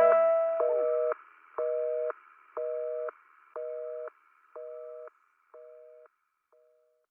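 Telephone busy signal: a two-note tone beeping about once a second, half a second on and half a second off, each beep quieter until it dies away. The song's last notes ring out underneath at the start.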